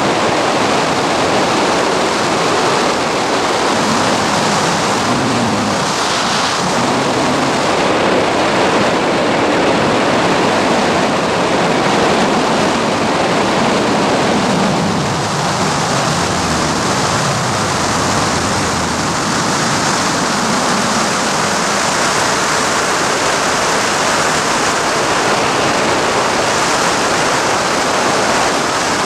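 Steady, loud rush of wind over the camera's microphone during a parachute jump, an even roar with nothing else standing out.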